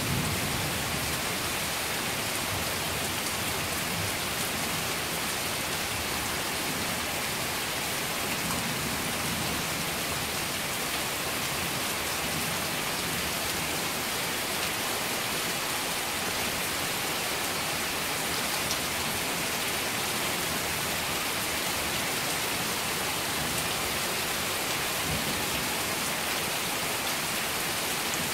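Steady, heavy rain pouring down, an even wash of sound, with the tail of a thunder rumble dying away at the very start.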